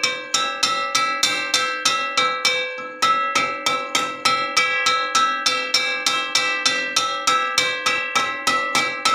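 A metal wok struck again and again in a steady rhythm, about three to four hits a second, each hit ringing on with a bell-like metallic tone. There is a brief pause about three seconds in.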